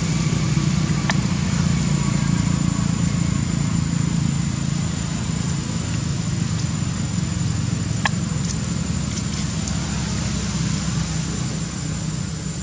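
Steady low drone of a motor engine running, with a couple of short clicks over it.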